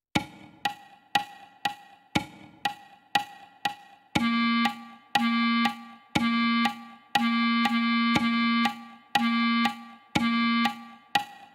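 Notation-software playback of a clarinet part: a metronome clicks two beats a second, a louder click every fourth beat, alone for the first two bars. About four seconds in, a synthesized clarinet joins, playing the same low note over and over on the beats.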